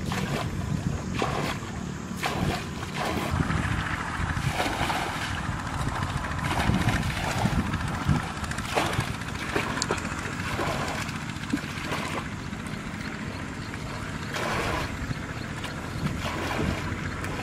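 Plastic buckets scooping and pouring muddy water, an irregular run of splashes and pours, as a shallow ditch is bailed out by hand.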